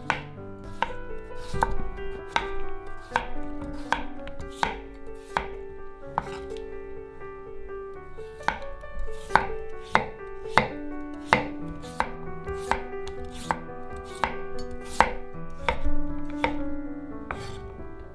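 Chef's knife slicing raw peeled potatoes into rounds, each cut ending in a sharp knock of the blade on a wooden cutting board, at a steady pace of a bit more than one a second.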